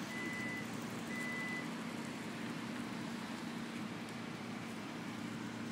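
Steady low rumble of road traffic, with two short high beeps about a second apart near the start.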